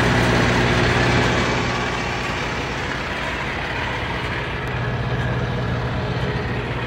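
Heavy truck engine running steadily with a constant low drone.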